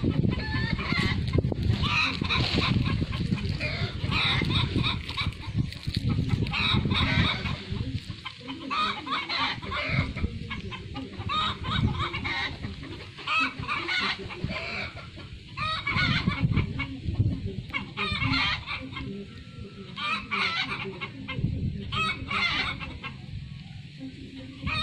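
Farmyard chickens clucking in short repeated calls, with a rooster crowing at times, over a low rumbling noise.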